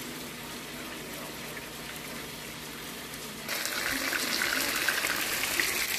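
Hamburger patties frying in butter and oil in a skillet, a dense crackling sizzle that comes in suddenly about three and a half seconds in, after a softer steady hiss.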